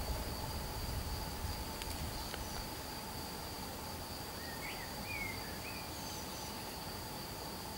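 Insects stridulating in the background: a continuous high-pitched trill, with a few faint short chirps around the middle.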